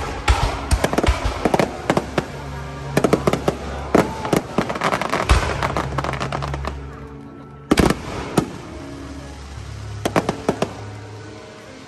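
Fireworks display: aerial shells bursting and crackling in rapid volleys, densest in the first five seconds and thinning out, with one big bang just under eight seconds in and a short cluster of bangs near the end.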